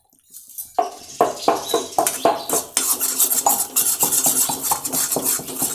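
Metal ladle scraping and clinking against an iron kadai as wheat flour roasting in ghee is stirred: quick, repeated strokes that start about a second in.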